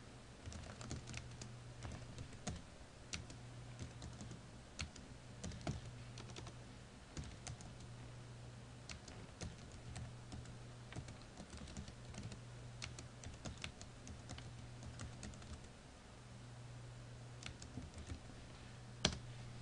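Typing on a computer keyboard: irregular key clicks in short runs, with one louder keystroke near the end, over a faint low hum.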